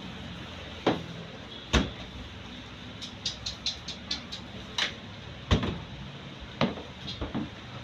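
Cooking oil heating in a wok, giving scattered sharp pops and a quick run of small crackles about three to four seconds in, over a steady low hum.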